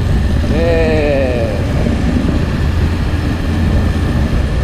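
Motorcycle running at highway speed, heard as a steady rush of wind over the microphone with the engine underneath. A short tone that slides gently downward comes through about half a second in.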